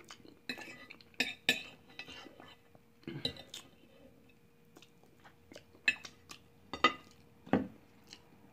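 Metal fork tapping, clinking and scraping against a plate while picking at fried chicken, in irregular short clicks with pauses between.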